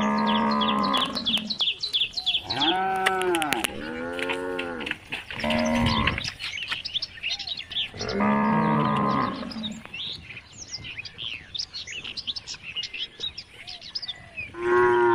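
Cattle mooing repeatedly, about six calls, some rising then falling in pitch, the last one cut off at the end. Small birds chirp faintly throughout.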